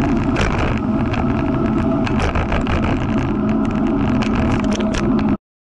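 Wind rushing over a moving ride camera's microphone, with steady road rumble, ending abruptly just before the end.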